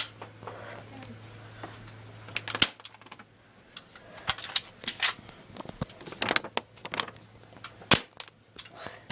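Airsoft gun firing single shots: a string of sharp snapping clicks at irregular intervals, about a second apart in places.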